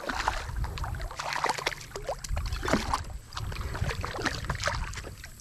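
A small hooked bass splashing at the surface of shallow water as it is reeled in, followed by irregular water sloshing as a hand reaches in to grab it.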